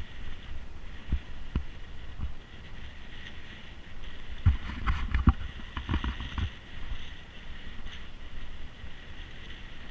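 Mountain bike riding over a rough off-road trail: a steady low rumble broken by irregular thuds and rattles as the bike jolts over bumps, heaviest around the middle.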